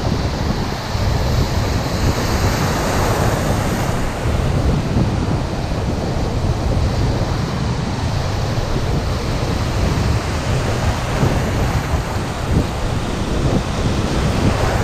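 Small surf waves breaking and washing around the wading angler, with wind buffeting the microphone as a steady low rumble.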